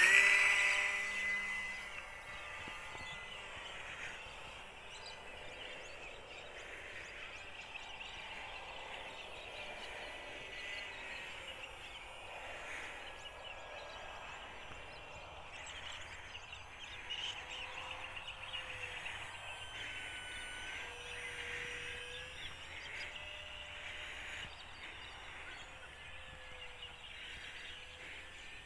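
Background music fades out in the first two seconds, then the faint whine of a UMX Cessna 182 model plane's electric motor flying at a distance, its pitch sliding slowly up and down with the throttle, over a steady outdoor hiss.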